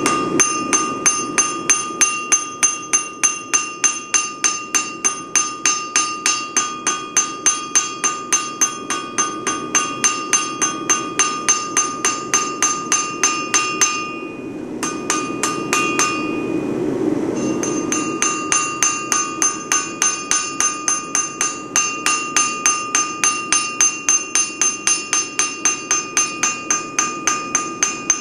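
Blacksmith's hammer striking hot steel on an anvil in a fast, steady rhythm of about three blows a second, each blow ringing, forging a leaf. The hammering stops twice briefly around the middle, then resumes.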